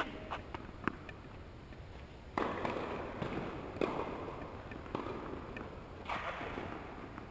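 Tennis balls being struck and bouncing in an echoing indoor tennis hall: a few sharp knocks over the hall's background noise. An abrupt rush of broad noise starts about two and a half seconds in and comes again near the end.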